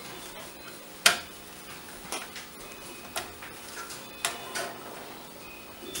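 Magnetic screwdriver and steel screws clicking and tapping against the motherboard's mounting points: five sharp metallic clicks about a second apart, the first the loudest.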